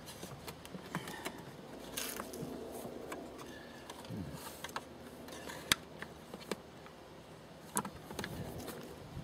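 Hands working the plastic air filter housing of a Citroën C15 into place: light rustling and scattered small plastic clicks and knocks, with a sharper click a little over halfway through.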